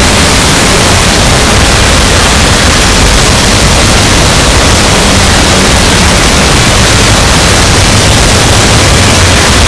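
Harsh noise wall: a loud, unbroken wall of static-like noise filling the whole range from deep rumble to high hiss, churning but never changing in level.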